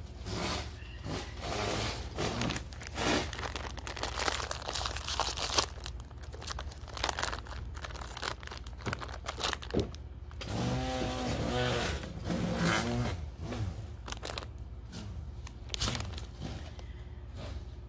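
Irregular close rustling, crinkling and clicking handling noises, with a short wavering pitched sound about eleven seconds in.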